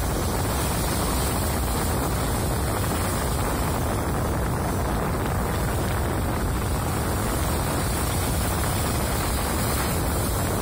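Wind buffeting the microphone: a steady rushing noise with a low rumble that holds even throughout.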